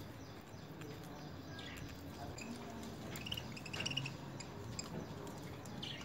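Soft chirping of small caged parakeets, with a quick run of short, high chirps about halfway through.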